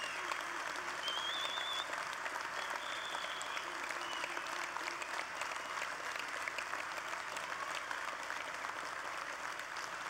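Large convention crowd applauding steadily, with a few high whistles in the first few seconds.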